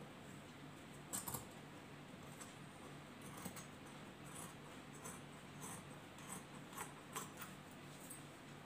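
Scissors snipping through folded rayon-cotton cloth: a run of faint, crisp snips about two a second.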